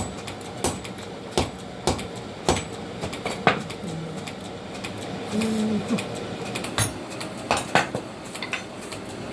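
Blacksmith's hammer striking steel on an anvil while forging a fukuro-yari blade: sharp ringing blows about one every two-thirds of a second, a pause of a few seconds, then a few more blows.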